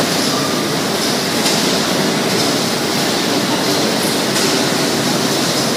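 Steady running noise of industrial laundry machinery, with a faint low hum and no breaks.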